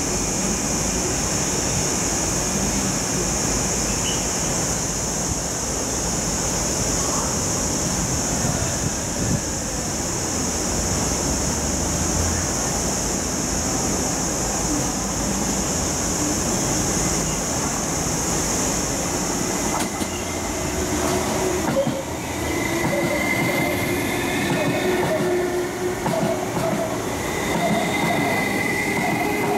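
MTR East Rail line MLR electric multiple unit running through a station without stopping, a steady loud rumble of motors and wheels on rail. A steady high hiss stops abruptly about two-thirds through, and thin squealing wheel tones come in over the last several seconds.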